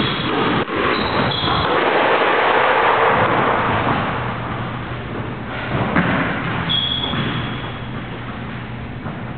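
Squash court sounds over a steady rushing noise: one sharp knock about six seconds in, then a high squeak of a court shoe on the floor.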